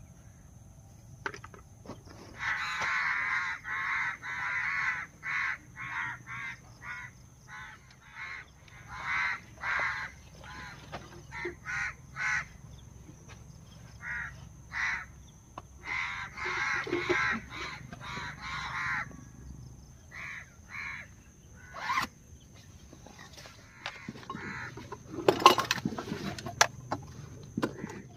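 Crows cawing over and over in short, harsh calls, dense at first and then more scattered, over a thin steady high whine. Near the end there is a brief burst of loud knocks and rustling.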